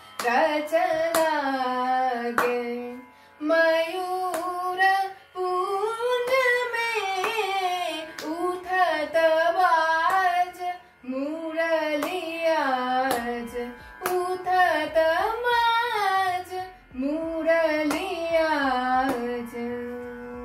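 A woman singing a Hindustani classical bandish in raag Bhairav, her voice gliding between long held notes in phrases, with sharp hand claps keeping time.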